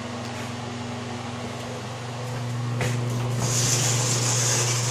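Steady low hum of air-conditioning or ventilation in a small bathroom. About three seconds in there is a click, then a louder hiss.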